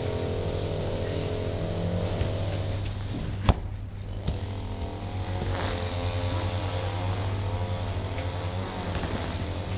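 A motor running steadily with a low hum, its pitch wavering up and down. A single sharp knock comes about three and a half seconds in.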